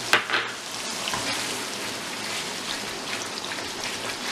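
Tomato paste frying in hot oil and butter with a steady crackling sizzle as it is stirred in with a silicone spatula. A sharp click just after the start.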